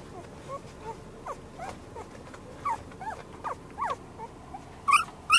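Samoyed puppies, 11 days old, squeaking: a string of short, soft squeaks, several a second at times, then a couple of louder, higher squeals near the end.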